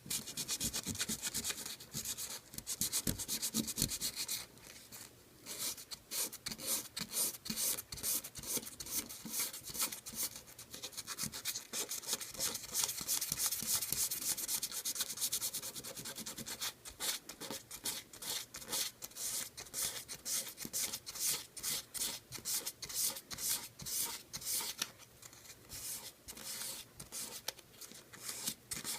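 Hand sanding of wood: sandpaper rubbed back and forth in quick repeated strokes, with a brief pause early on and more separate strokes in the later part.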